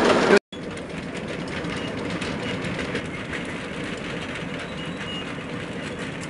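Miniature ride-on railway train running along its track, with a steady rumble of wheels on the rails and faint clicking over the rail joints. About half a second in, the sound cuts off abruptly and comes back quieter.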